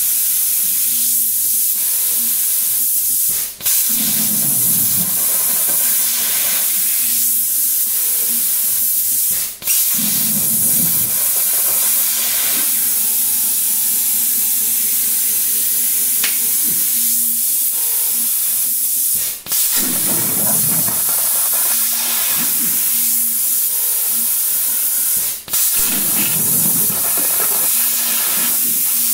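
CNC plasma cutting torch cutting 3/16-inch steel plate: a loud, steady hiss of air and arc that cuts out briefly four times, as the torch stops between cuts and starts a new pierce, each restart followed by a few seconds of deeper rumble.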